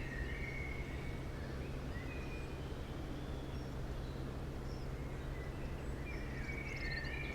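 Scattered short bird calls, a few chirps at a time, over a steady low hum.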